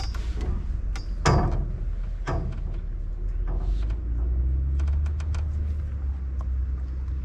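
A landing net holding a freshly caught silver carp being handled at the water's edge: a string of sharp knocks and clatters over a steady low rumble, the loudest knock about a second in.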